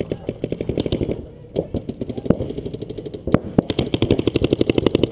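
Paintball markers firing rapid strings of shots, about a dozen a second. The strings come and go, with a few louder single cracks in between, and the firing runs on without a break from near the end.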